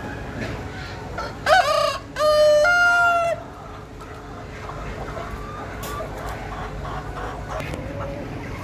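A rooster crowing once, a short opening note and then a long held note that steps up in pitch partway through, followed by faint chicken clucks.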